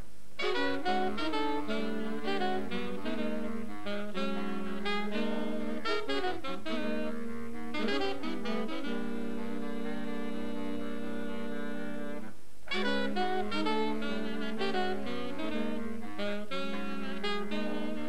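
Saxophone ensemble with bass clarinet playing jazz: busy melodic lines over a held low chord, with brief breaks about half a second in and about twelve seconds in.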